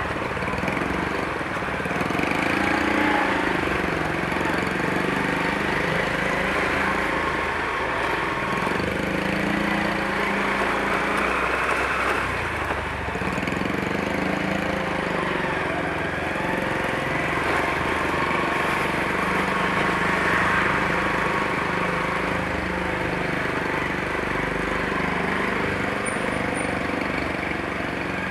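Motorcycle engine running under way in traffic, with steady road noise.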